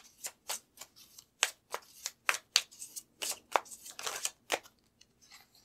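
A deck of tarot cards being shuffled by hand: a quick, irregular run of short card snaps and rustles that stops about a second before the end.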